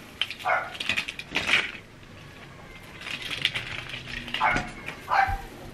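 Light metallic clinking and rattling in irregular short bursts, a small metal chain garland on an artificial tree knocking about as the tree is handled.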